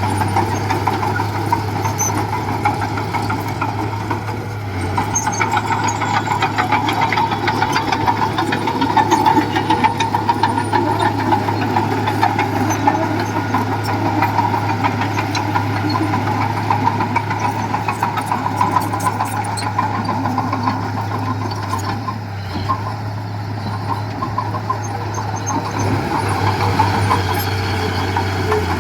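Diesel engine of heavy construction machinery running steadily, with a constant low drone.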